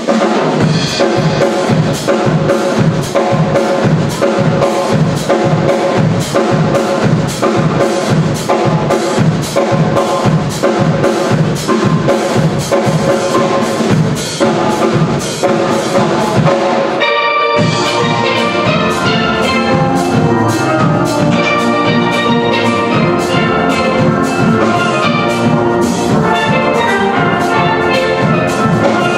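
A steel band of many steel pans playing a calypso with a steady beat. About seventeen seconds in the band stops for a split second and comes straight back in.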